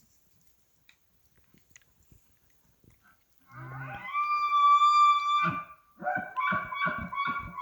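Bull elk bugling: a low grunt rising into a long, high whistle about three and a half seconds in, then a run of rhythmic chuckles with the whistle carrying on over them.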